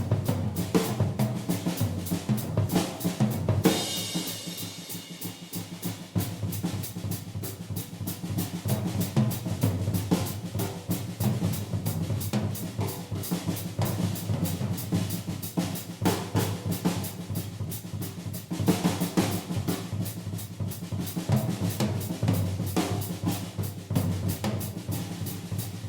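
Vintage 1970 Ludwig 3-ply drum kit played in a fast solo: rapid snare and tom strokes and rolls over the bass drum. There is a cymbal crash about four seconds in and another about nineteen seconds in.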